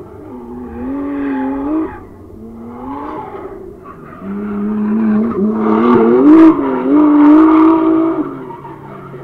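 Drift cars' engines revving hard in surges, the pitch climbing and falling with the throttle, with tyre squeal as the cars slide; the loudest, longest surge comes in the second half, with a short sharp crack about two-thirds of the way in.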